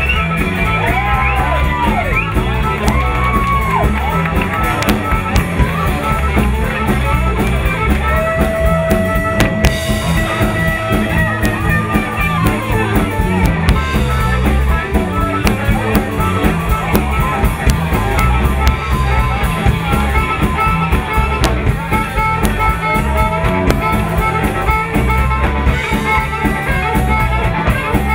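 Live electric blues band playing an instrumental break: drums, bass and electric guitars under a harmonica played into a hand-held microphone, bending notes and holding some long ones.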